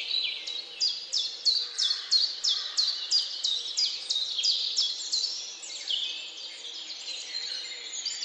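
Birds calling: a rapid, continuous series of sharp high chirps, each sweeping downward in pitch, about three a second, over a faint steady outdoor hiss.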